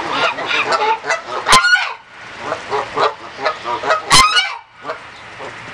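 Chinese goose honking repeatedly: a fast run of short calls with two much louder honks, about a second and a half in and just after four seconds, before the calling stops near the end.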